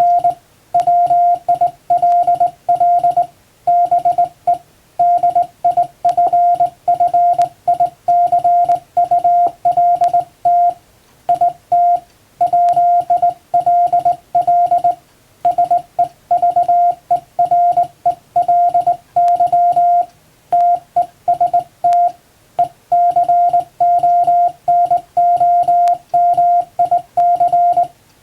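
Hand-sent Morse code in plain English text, keyed on a straight key: a single steady tone switched on and off in quick dots and dashes, with short pauses between letters and words.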